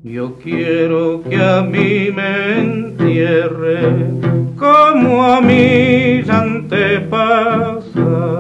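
Background music: a slow song, a voice singing with strong vibrato over accompanying instruments.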